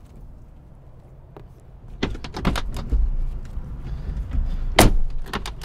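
Doors of a Mercedes G-Wagon being opened and people climbing in: a run of clicks, knocks and rustling, with one sharp bang a little before the end.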